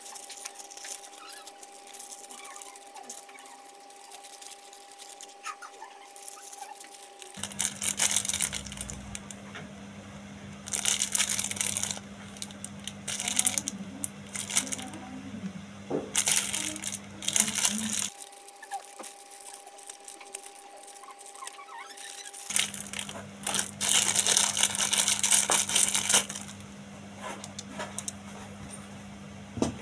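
Thin plastic packaging crinkling and tearing in the hands in several bursts as it is opened. Small chrome-plated steel mirror riser bolts clink against each other, under a steady low hum.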